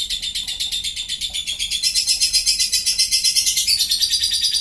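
Lovebird singing a long unbroken trill of rapid high chirps, about nine a second (the 'ngekek' song kept and judged in lovebirds), shifting slightly in pitch near the end.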